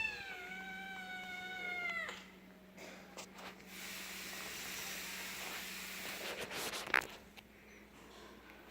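Domestic cat meowing: one long call, falling slightly in pitch, that stops abruptly about two seconds in. Scuffling and a few light knocks follow, with one sharp click near the end.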